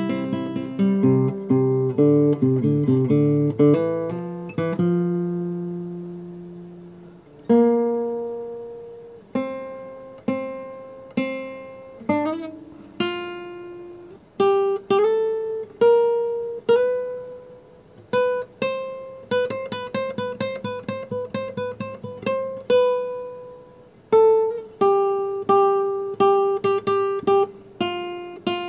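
Solo acoustic guitar music: strummed chords at first, then single plucked notes that ring and fade about one a second, with a quicker run of picked notes about two-thirds of the way through.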